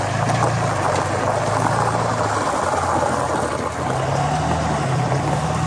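Tyre chains on the front wheel of a 3500 Heavy Duty pickup crunching and clattering over icy, slushy dirt road close to the microphone, a dense rattle of small clicks over the steady low hum of the truck's engine.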